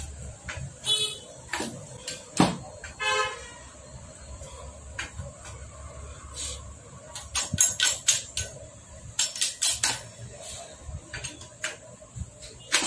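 Irregular metal clinks and knocks of tools and parts as a Hero Splendor Plus motorcycle engine is assembled by hand. Two short vehicle-horn toots come about one and three seconds in.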